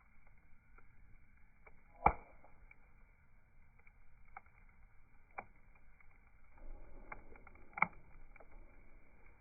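Bonfire crackling: scattered sharp pops and ticks from burning wood over a low steady hiss, with one loud pop about two seconds in and another near the end.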